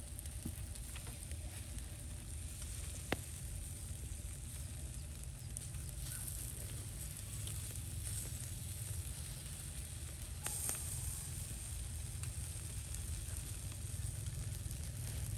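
Pork intestines sizzling on a wire grill over charcoal, with a steady low rumble underneath. Metal tongs click against the grill rack twice, about three seconds in and again about ten seconds in.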